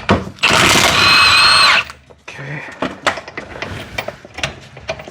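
Impact wrench running in one burst of about a second and a half with a whining tone, breaking loose a front mounting bolt on a BMW E46 rear differential. It is followed by scattered light metallic clicks and knocks of tool handling.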